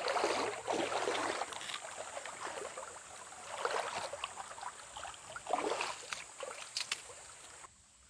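Legs wading through shallow stream water, sloshing and splashing in surges with the strides, with a few sharp clicks near the end. The sound cuts off suddenly just before the end.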